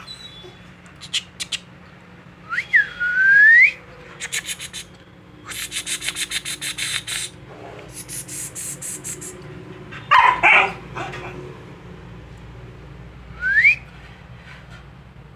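Someone whistling and making quick kissing clicks to call a Labrador puppy, with a whistle that falls and then rises early on and a short rising whistle near the end. A short, loud call about ten seconds in.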